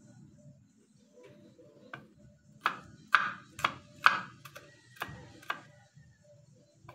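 Kitchen knife chopping garlic on a wooden cutting board: a run of about eight sharp knocks, roughly two a second, starting about two seconds in.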